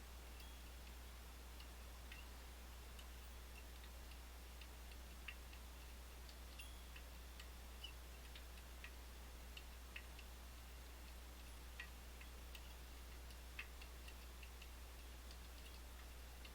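Faint, irregular metallic clicks of a pick pushing the pins of an Izis French pump lock under light tension, over a low steady hum.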